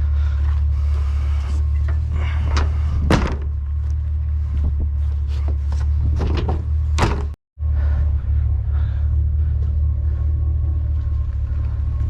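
A few sharp knocks and clunks over a steady low rumble, with a brief cut-out about halfway through.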